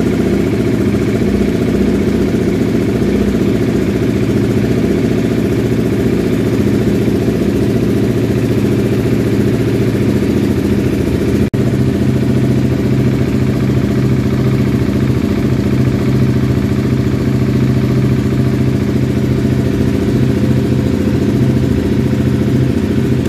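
Husqvarna 701's single-cylinder four-stroke engine idling steadily while still cold.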